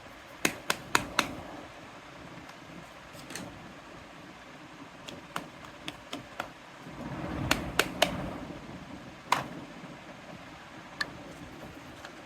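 Small plastic toy kitchen pieces clicking and tapping as they are handled: four quick taps near the start, a cluster of taps over a brief low rustle around the middle, and a couple of single taps later.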